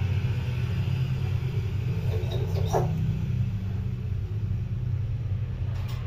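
Steady low mechanical hum, like a motor running, with one faint short falling whistle about three seconds in.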